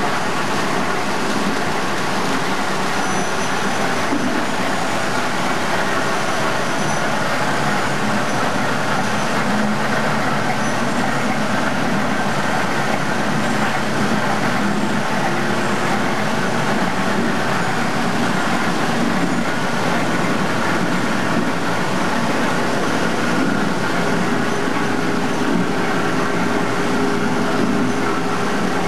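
SY-HD38 automatic square-bottom paper bag making machine running: a loud, steady, dense mechanical noise with no break.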